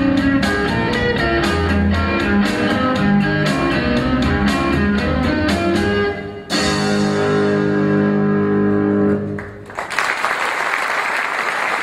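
Guitar-led music with a steady beat, switching abruptly to held chords about six and a half seconds in. Near the end the music stops and an audience breaks into applause.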